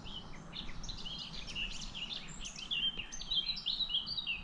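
Songbird singing from the riverbank trees: a run of quick chirping notes that comes thicker and louder in the second half, over low steady background noise.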